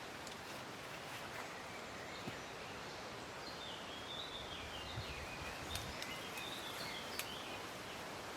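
Steady wind noise in a forest, with a bird singing a warbling, up-and-down phrase from about three and a half seconds in to about seven and a half seconds, and a few faint clicks.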